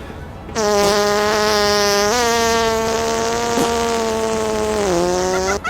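A long, buzzing fart sound, one steady pitched tone held for about five seconds. Its pitch steps up slightly about two seconds in and sags near the end before it cuts off.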